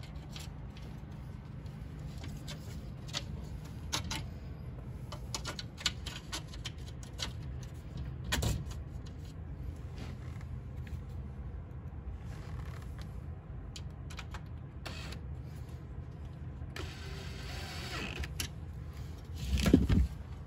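A sliding patio screen door being handled and set on its track: scattered clicks and knocks of its aluminium frame and new roller, a rolling scrape near the end and a heavy thump just before the end, over a steady low hum.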